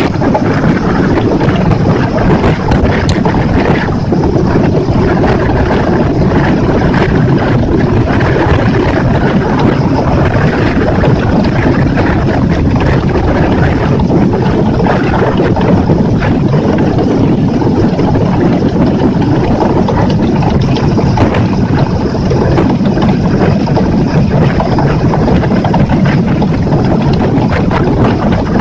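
Small boat underway with its Yamaha F60F 60 hp four-stroke outboard running steadily, water rushing past the hull, and heavy wind buffeting the microphone.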